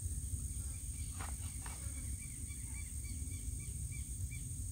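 Steady high-pitched insect drone, with a row of faint short chirps and a low rumble underneath.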